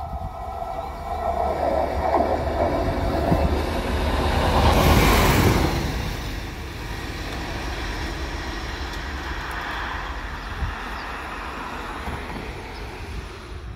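A small yellow rail maintenance vehicle passes on the track: its engine and wheels on the rails build up as it approaches, are loudest about five seconds in as it goes by, then fade to a steadier, quieter run as it moves away.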